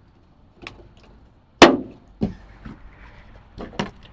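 One sharp, loud knock with a short ringing tail, with fainter clicks and taps before it and a couple more near the end.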